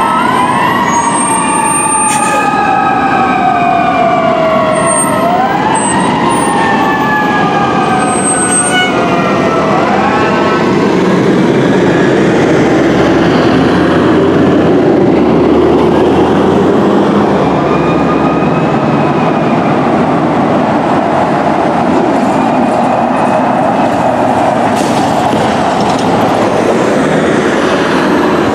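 Fire truck electronic sirens wailing, two or more at once with their rising and falling pitches overlapping, for about the first ten seconds. After that the sirens give way to a steady, loud rumble of heavy truck engines and traffic.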